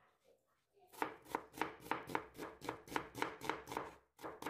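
Chef's knife slicing an onion thinly on a wooden cutting board: quick, even strokes of the blade through the onion and onto the board, about four a second. They start about a second in and pause briefly near the end.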